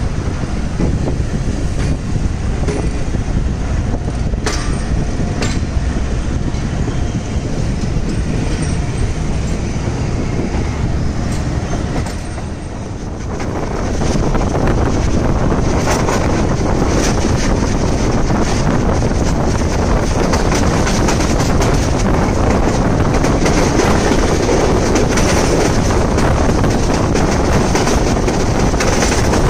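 Passenger train running along the track, its wheels rattling and clacking on the rails with wind rushing past the open coach doorway. The noise dips briefly a little before the middle, then grows louder and fuller for the rest.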